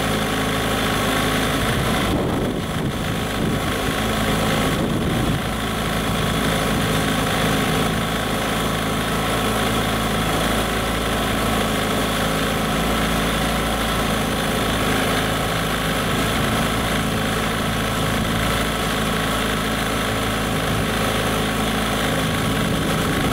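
A 15 hp Johnson/Evinrude outboard motor running steadily in a test tank, its propeller churning the tank water.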